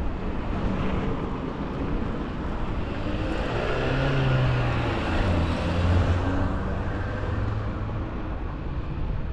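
A car passing on the road, its engine and tyre noise growing louder toward the middle and then fading away.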